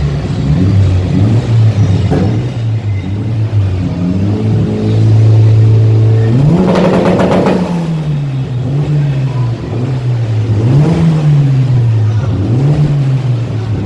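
Mitsubishi Lancer Evolution's turbocharged four-cylinder revved through its exhaust from idle in several short blips, the longest about halfway through, with a run of sharp crackling pops from the exhaust backfiring as the revs climb and fall.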